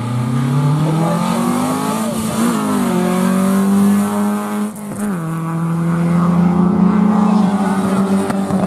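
Rally car engine accelerating hard through the gears, its pitch climbing and then dropping at gear changes about two and a half and five seconds in.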